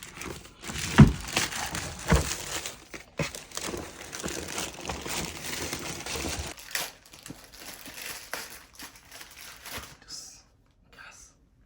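Parcel packaging crinkling and tearing as it is opened by hand, with sharp knocks about one and two seconds in; the handling dies away a little before the end.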